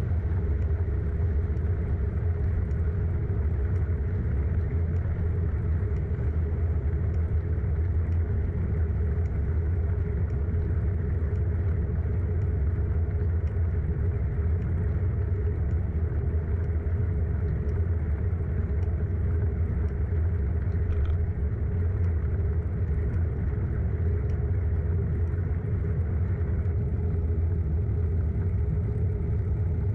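Steady low rumble of riding a bicycle: wind and road noise on the moving microphone, level and unbroken, with a few faint ticks.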